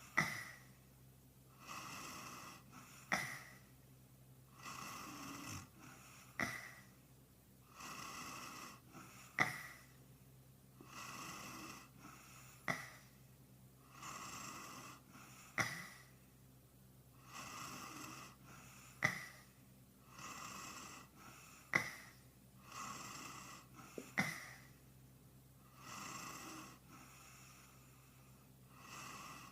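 A man snoring, sped up and pitched up: each cycle opens with a sharp snort followed by a longer breathy stretch, repeating about every three seconds.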